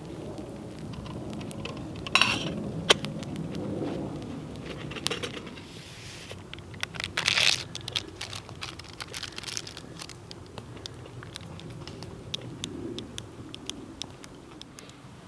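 Campfire crackling with scattered pops, and a couple of louder rustling or scraping noises about two and seven seconds in.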